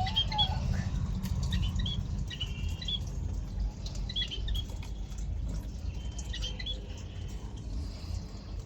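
Parrot making short, high chirps and squeaks at irregular intervals, over a steady low rumble.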